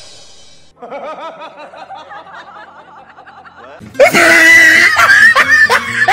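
A man laughing in quick, wavering snickers. About four seconds in, a much louder shrill cry cuts in and takes over.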